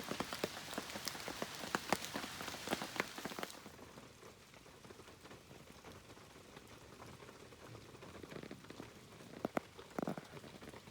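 Rain falling steadily, with many sharp individual drop hits. It cuts off abruptly about three and a half seconds in, leaving a faint background with a couple of knocks near the end.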